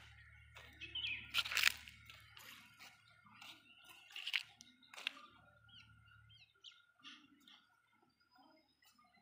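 Footsteps scuffing and crunching on leaf-strewn brick paving, irregular, with a few sharper clicks about a second and a half in and again around four and five seconds. Short bird chirps sound faintly in the second half.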